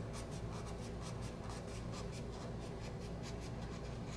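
Sandpaper rubbed by hand, with no backing, over the curved briar bowl of a Dunhill pipe: quick, short scratchy strokes, several a second, blending the reshaped surface before finishing.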